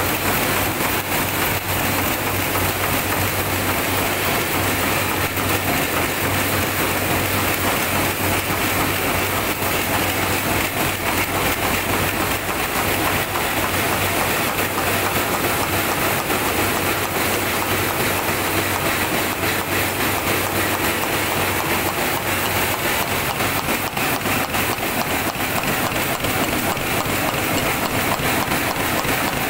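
An automatic 08B roller chain production line running: its machines press and feed steel chain in a rapid, continuous metallic clatter.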